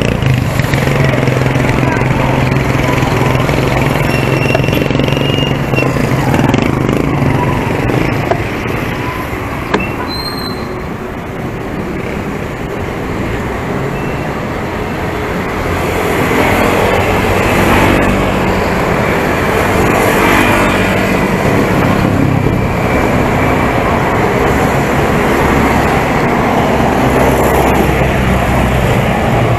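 Street traffic heard from a bicycle in the middle of it: jeepney and motorcycle-tricycle engines running close by, with a steady low hum for the first several seconds. The traffic noise eases off briefly about a third of the way in, then builds again as more vehicles pass.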